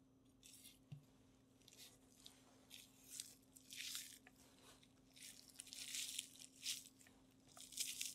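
Chef's knife slicing through the hard fat cap and silver skin of raw beef ribs: faint, short crackling strokes, louder and closer together in the second half.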